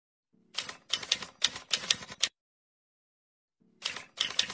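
Typewriter sound effect: two runs of rapid key strikes, each about two seconds long, the first starting about half a second in and the second starting near the end, with silence between.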